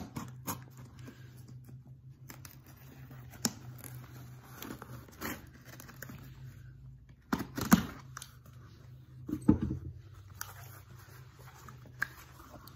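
A shipping package being opened by hand: irregular tearing, crinkling and rustling of the packaging, with louder bursts about seven and a half and nine and a half seconds in.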